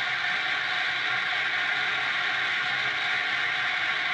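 Studio audience applauding, a steady dense rush of clapping without breaks.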